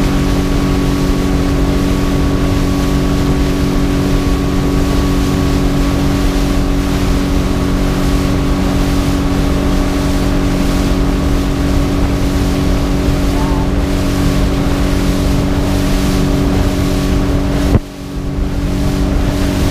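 Small motorboat's engine running steadily at cruising speed, a constant drone, with wind rushing over the microphone; the sound dips briefly near the end.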